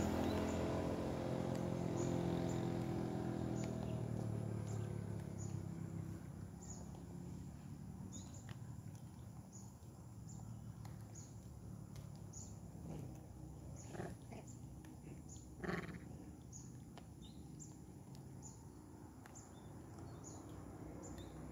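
A motor vehicle's engine fading away over the first several seconds. It leaves quiet outdoor ambience with a steady string of short, high chirps and two brief, louder animal sounds about two-thirds of the way through.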